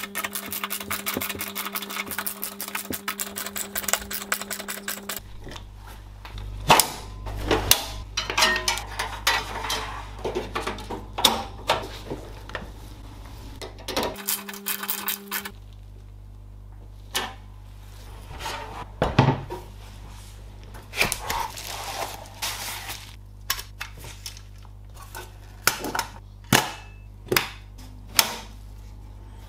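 A screwdriver backing out screws from a steel PC case, with rapid ticking for the first five seconds or so. Then come scattered metal clicks and knocks as screws, drive-bay parts and the sheet-steel chassis are handled.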